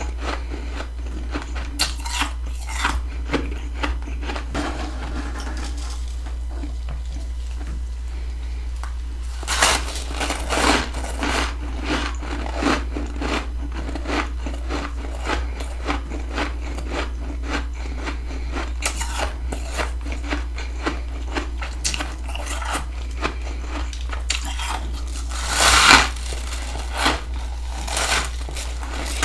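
Close-up crunching and chewing of freezer frost, with many small crackly crunches and louder bites about ten seconds in and again near the end, over a steady low hum.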